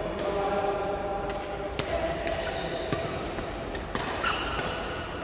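Badminton rally: a handful of sharp racket strikes on the shuttlecock, roughly a second apart.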